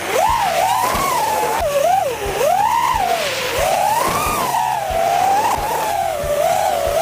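FPV racing quadcopters' electric motors whining, the pitch swooping up and down with the throttle, with two whines overlapping at times.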